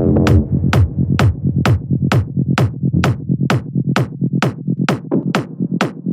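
Minimal techno music: a sharp percussive hit about twice a second over a low synth bass, with the bass thinning out after about a second.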